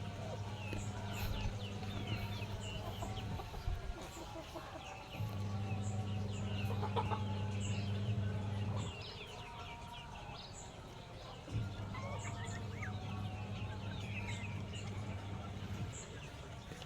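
Chickens clucking and young chicks peeping in rapid, high, falling cheeps. A low steady hum comes and goes in stretches of a few seconds, about a second in, six seconds in and twelve seconds in.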